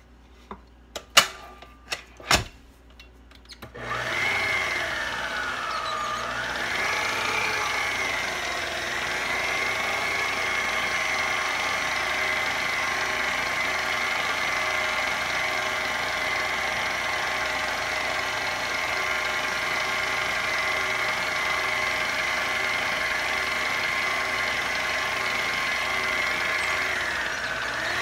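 A few light clinks, then an electric mixer switches on about four seconds in, beating cake batter. Its motor whine rises, sags briefly, then runs at a steady pitch, dipping again near the end.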